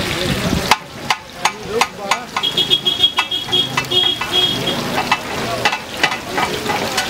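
A whole masala-coated fish sizzling as it shallow-fries in oil on a flat black griddle pan. After about a second the steady hiss drops back and a run of sharp clicks and taps begins: steel spatulas knocking and scraping on the pan. A thin high-pitched tone sounds in the middle of this.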